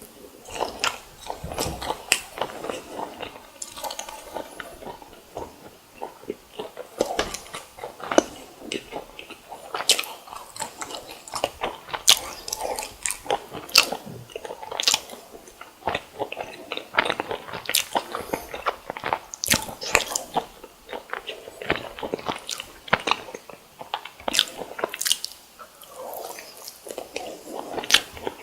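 Close-miked eating ASMR: a person biting and chewing deep-fried sweet rice doughnut and croquette, with many sharp, irregular crunches.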